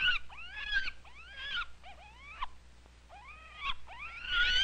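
Infant monkey giving a quick series of short, high-pitched squealing calls, each rising and then falling in pitch, a few every second.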